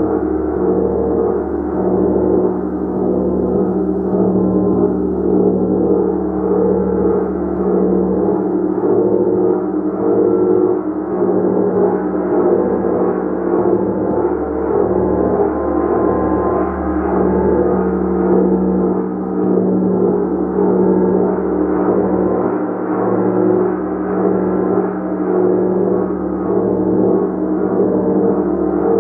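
Gong played continuously: a dense, sustained wash of many overlapping tones that swells and pulses in a steady rhythm of repeated soft strikes.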